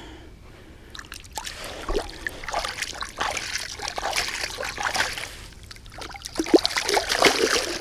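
Shallow lake water splashing and trickling in irregular bursts as a released carp kicks free of the hands and swims off, starting about a second in.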